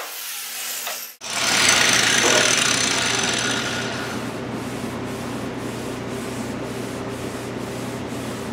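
Angle grinder with a stainless steel shrinking disc trailing off in the first second. Then a wet quench rag goes onto the hot steel bonnet panel: a loud steam hiss starts about a second in and fades over the next few seconds into steady rubbing of the rag on the metal. This is the quench that shrinks the heated high spot to take out oil canning.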